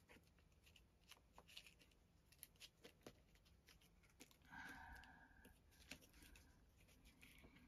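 Near silence, with faint scattered ticks and a short rustle a little past halfway as small paper cut-out pieces are picked up and handled.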